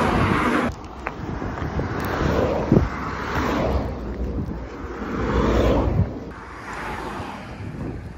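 Cars passing at speed on an expressway, about four going by one after another, each a rising and fading rush of tyre and engine noise.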